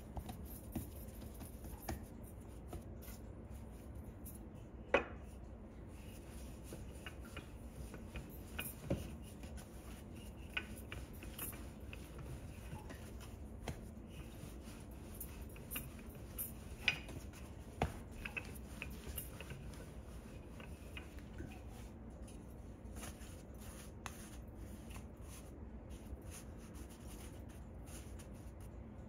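Hands and a wooden rolling pin working pizza dough on a floured board: soft rubbing and patting with scattered light taps and knocks, over a steady low hum.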